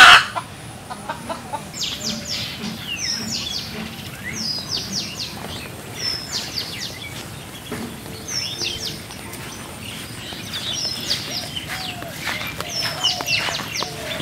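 Outdoor birdsong: short bursts of quick, high chirps that come again every second or two. A brief loud knock sounds right at the start.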